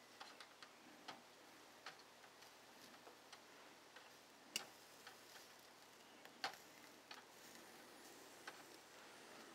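Faint, scattered clicks and ticks of metal tongs on a wire grill grate as white asparagus spears are turned, with two louder clicks about four and a half and six and a half seconds in.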